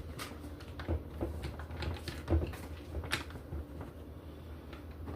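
Metal parts of a Mossberg 500A pump shotgun clicking and knocking as it is taken apart by hand, about a dozen irregular small clicks with the sharpest about two and a half and three seconds in.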